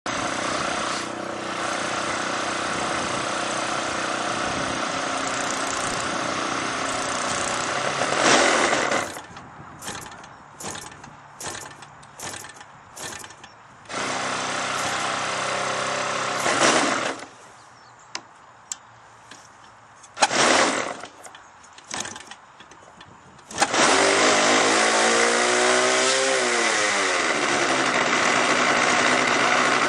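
Model aircraft engine being started by hand at the propeller: it fires in a string of short bursts with quiet gaps between them, runs briefly twice, then catches a few seconds before the end and keeps running steadily. A steady engine sound comes first, for the first several seconds.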